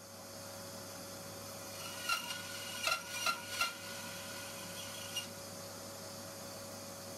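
A few light, sharp metallic clicks with a faint ringing between about two and five seconds in, as a steel jigsaw blade is handled and fitted into a saw-cut slot in a wooden block. A steady hum runs underneath.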